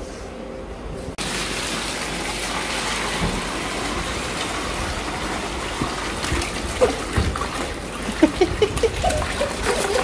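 Water pouring out of a plastic bucket into a plastic tub, a steady gush that starts suddenly about a second in, with uneven splashing near the end as the catfish slide out with the water.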